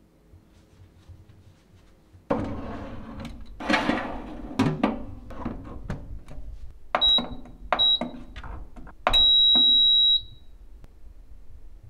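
A wire rack with a pizza clattering as it is slid into a Lacuzin mini oven, with a few knocks, then the oven's control panel beeping: two short high beeps, then one long beep of about a second, as the timer is set.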